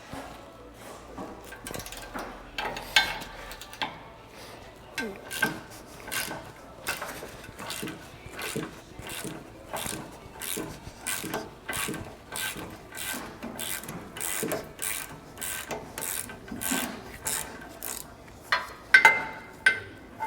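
A hand tool worked in repeated short back-and-forth strokes, a rasping scrape about twice a second.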